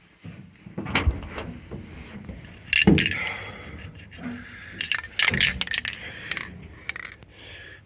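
A few sharp knocks and rattling clatters, the loudest about three seconds in, with short hissing between them.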